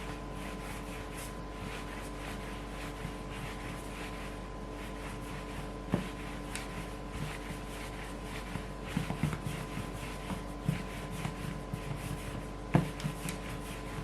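Hands handling bread dough on a work surface: soft rubbing and handling noises with two light knocks, about six seconds in and near the end, over a steady faint hum.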